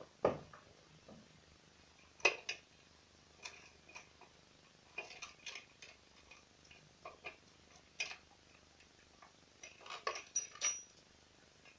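Scattered light clicks and clinks of a chainsaw's plastic and metal parts being handled, in irregular clusters with a louder knock now and then.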